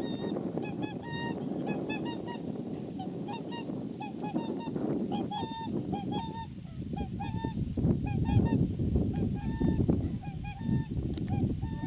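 A flock of swans calling as they fly low and come in to land: many short, honking calls, overlapping and repeated throughout, over a low rumble that grows louder in the second half.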